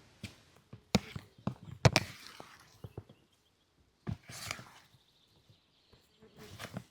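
A few sharp knocks or clacks, the loudest about two seconds in, each followed by brief rustling, with a faint steady high tone in the second half.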